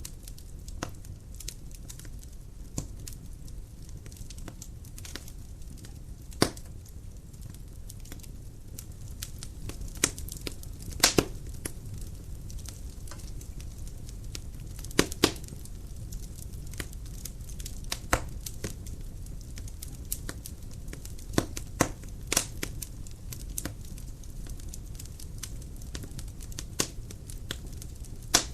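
Dry firewood burning in a fireplace: a steady low roar of flame with irregular sharp crackles and pops of the wood, several louder snaps scattered through.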